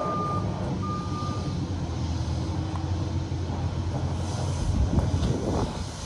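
Tractor engine running steadily while an electronic warning beeper sounds twice early on, then stops. A few knocks and scuffs come near the end.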